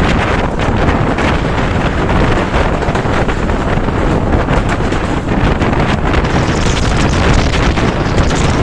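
Steady wind rushing over a microphone held out of a moving passenger train, mixed with the train's running noise on the track.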